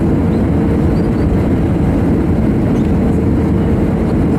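Steady cabin noise of an Airbus A320 on final approach with flaps extended, heard from inside over the wing: a low, even rumble of the turbofan engines and rushing air, with a faint steady tone above it.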